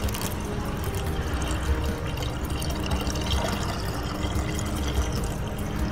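Liquid pouring steadily from a plastic bottle into a car's windshield washer reservoir through its filler neck.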